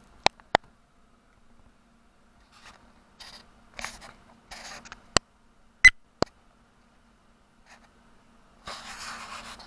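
Handling noise from a handheld camera: a scatter of sharp clicks and short rustles, with a longer rustle near the end, over a faint steady hum.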